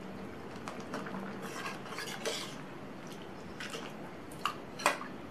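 Metal ladle stirring thick lentil sambar in a steel saucepan, scraping and clinking against the pan, with two sharp clinks near the end.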